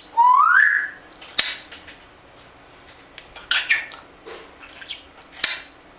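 African grey parrot giving a rising whistle, then a few sharp clicks and short squawks and chatter.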